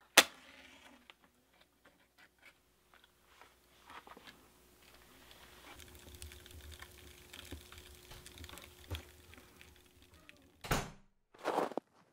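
Faint crackling and popping of a fire of crumpled paper and kindling just catching, over a faint steady hum. There is a sharp click at the very start and a louder burst of noise near the end.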